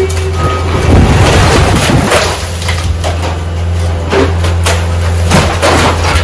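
Excavator's diesel engine running steadily while its arm tears into a mobile home's wall, with crunching, cracking and snapping of wood framing, siding and panelling and debris clattering down, starting about a second in.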